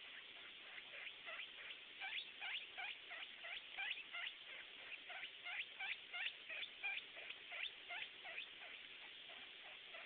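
Guinea pigs squeaking: a rapid series of short, high, rising squeaks, about three a second, that builds after a second and thins out near the end.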